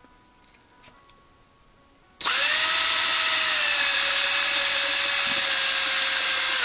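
A 36-volt cordless drill with a 3/16-inch bit starts abruptly about two seconds in and runs at a steady high speed, drilling into the metal base of a 1:64 die-cast truck to open it. The bit is wearing, so the cut goes a little slower.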